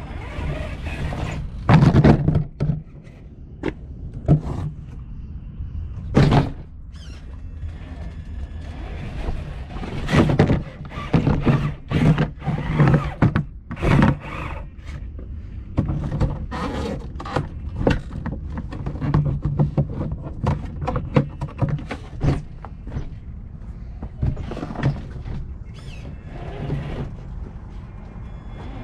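Radio-controlled car driving over rock: its motor hums in short spells, with many irregular knocks and scrapes of the car against stone, over a constant low rumble.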